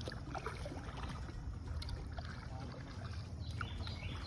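Light water splashes and drips from kayak paddles working the river, scattered small irregular ticks, over a steady low rumble.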